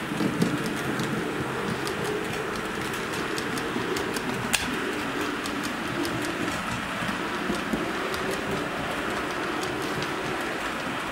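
H0-scale model train, an ÖBB Taurus electric locomotive with a rake of intercity coaches, running along the layout track. It makes a steady rumble of wheels and motor, with light clicks from the wheels on the rails and one sharper click about four and a half seconds in.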